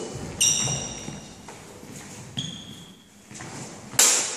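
Steel training longswords clashing: a blade-on-blade strike that rings high about half a second in, a second ringing clash about two seconds later, and a loud sharp knock near the end.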